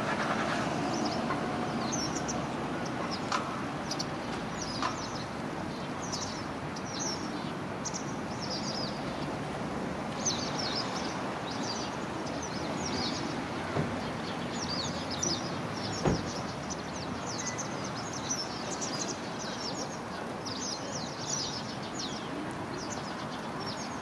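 A flock of Japanese pied wagtails (white wagtails) calling to one another as they settle into a communal roost in an evergreen oak. The calls are many short, high, falling notes in quick succession, over a steady hum of traffic. One sharp knock comes about two-thirds of the way through.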